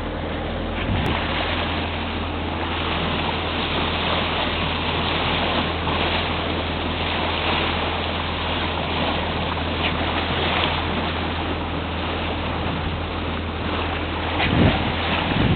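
Water rushing and splashing along a sailboat's hull as it moves through calm sea, with wind buffeting the microphone and a steady low hum underneath. A couple of sharper splashes come near the end.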